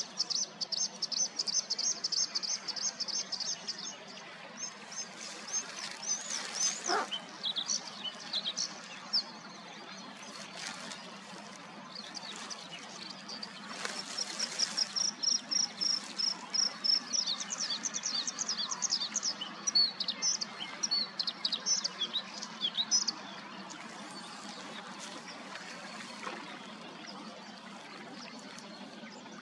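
Bluethroat singing: phrases of rapid, high repeated notes and chattering runs with short pauses between them, dwindling to a few faint notes over the last several seconds.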